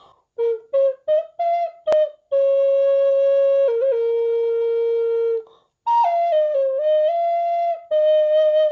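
Small handmade wooden Native American-style flute in B-flat playing a slow melody. It starts with a few short separate notes, then moves to long held notes with a quick ornament between them, and after a brief pause plays a phrase that steps downward. The tone is thin and pure, and there is a single click about two seconds in.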